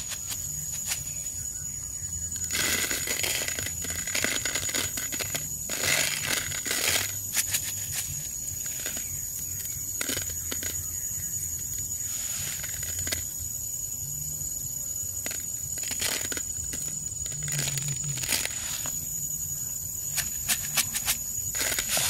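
Grain poured from a plastic bottle and sprinkled by hand onto a leaf, giving short hissing rattles, a stronger one about two and a half seconds in and another about six seconds in, with scattered light clicks of handling. A steady high-pitched tone runs underneath.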